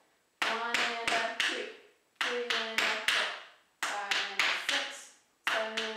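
Tap shoes striking a portable tap board: four quick bursts of several taps each, roughly one and a half seconds apart, each burst ringing briefly before dying away.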